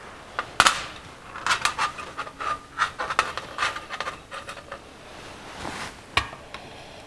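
Small metal carburetor parts and a screwdriver being handled on a sheet-metal pan and the carburetor's air horn: a scattered series of sharp clicks and light taps with soft scraping between them, the sharpest just over half a second in.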